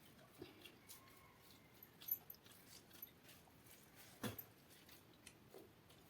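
Near silence: quiet room tone with a few faint clicks and one soft knock about four seconds in.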